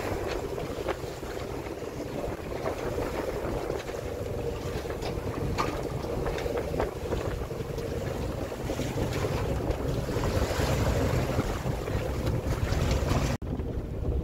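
Wind buffeting the microphone on a sailboat under way, with water rushing along the hull and the boat's engine running steadily underneath. The sound cuts out abruptly for an instant near the end.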